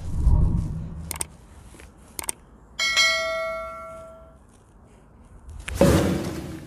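A single bell-like ding, struck once about three seconds in and ringing away over about a second and a half. Before it come a low rumble and two sharp clicks, and near the end a short loud burst of noise.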